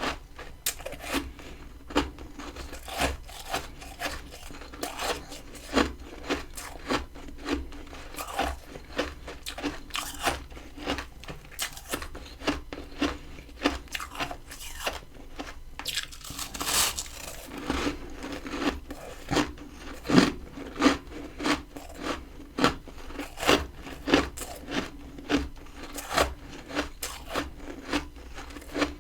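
Close-miked crunching of freezer frost and ice being bitten and chewed, sharp crisp crunches coming one or two a second, with a longer grinding crunch about two-thirds of the way through.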